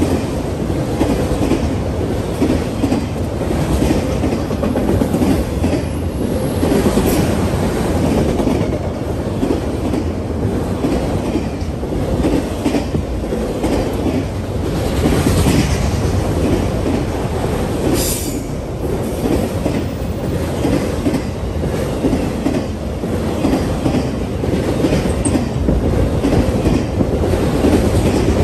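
Long freight train of autorack cars rolling past close by: a steady rumble of steel wheels on rail with a rhythmic clickety-clack over the rail joints. A few brief high squeals break through, one about a quarter of the way in and two more past the middle.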